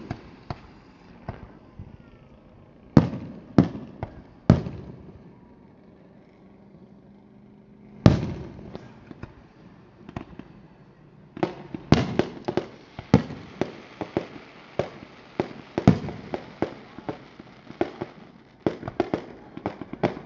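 Aerial fireworks bursting: three separate bangs in the first few seconds, a lull, a big bang about eight seconds in, then a rapid run of bangs and crackle from about eleven seconds on.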